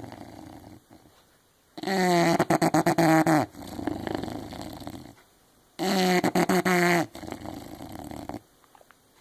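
English bulldog snoring in its sleep: twice, about four seconds apart, a loud pitched snore with a fluttering rattle, each followed by a softer, breathy snore.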